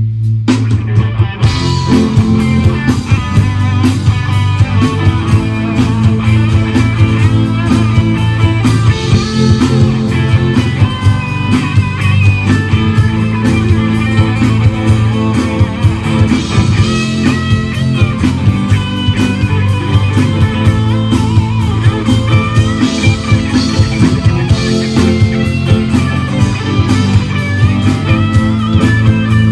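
Live rock band playing an instrumental stretch, with electric guitar over acoustic guitar, bass and drums keeping a steady beat.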